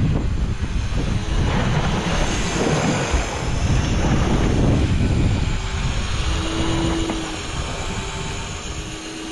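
Wind buffeting the microphone over sea water splashing against a boat's hull: a dense, rough rush with a heavy low rumble. A faint steady hum comes in during the second half.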